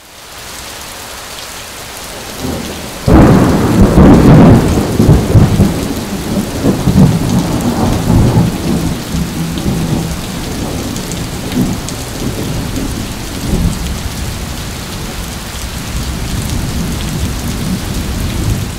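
Thunderstorm: steady rain, with a loud thunderclap about three seconds in that rumbles on for several seconds before easing back to the sound of rain, which fades out at the end.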